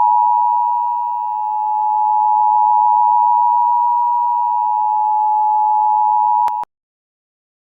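Emergency Alert System attention signal: a loud, steady two-tone alert held for about seven seconds that cuts off abruptly about a second before the end.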